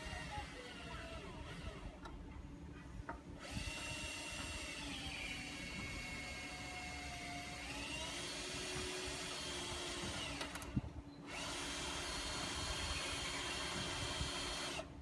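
Electric motor running in two long bursts with a whine that slides down in pitch and back up, cutting out for about half a second between the bursts and stopping abruptly near the end.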